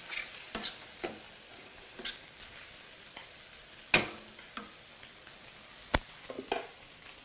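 Sliced mushrooms, dusted with flour, sizzling in a stainless steel frying pan as a metal spoon stirs them. A few sharp clicks of the spoon against the pan, the loudest about four seconds in.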